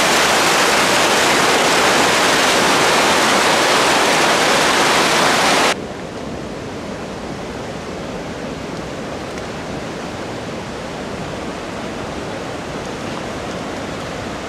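Rushing water: a loud, hissing rush of fast shallow water that cuts off abruptly about six seconds in, giving way to a quieter, duller steady rush of river water.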